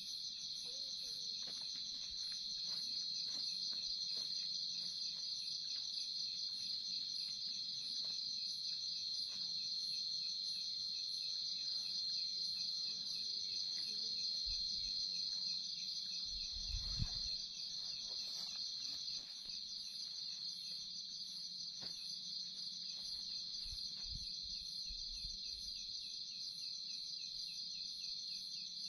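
A dense chorus of night insects trilling steadily in a high, rapid pulse. Faint rustles and clicks of movement sound through it, and there is one soft thump about two-thirds of the way through.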